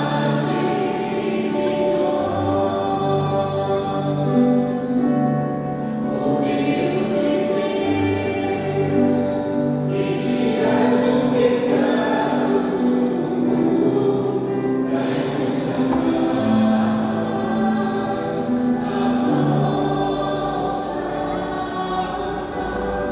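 Church choir singing a hymn in slow, held notes.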